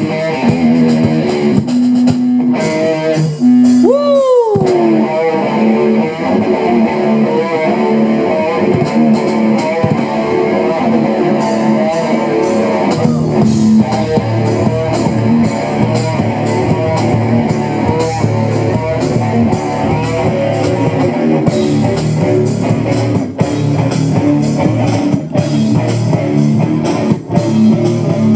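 Live rock band playing an instrumental through a PA: electric guitar over bass and drums, with a falling pitch glide about four seconds in.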